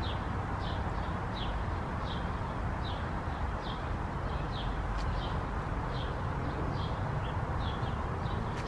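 A small bird chirping over and over, short high chirps about every two-thirds of a second, over a steady low outdoor rumble.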